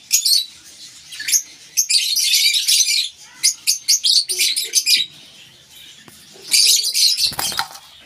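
Lovebirds chattering in three bursts of shrill, rapid chirps, mixed with wings flapping.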